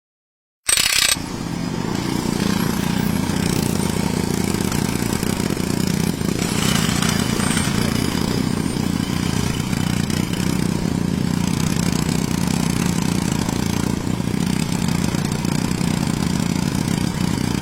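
Small DC gear motors of a homemade model drilling rig start abruptly about a second in, then run with a steady hum.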